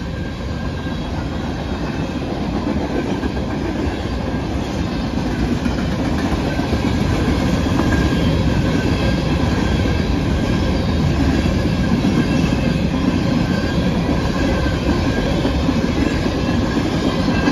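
Norfolk Southern freight train rolling past: a dense, steady rumble of cars and wheels on the rails that grows louder over the first several seconds and then holds.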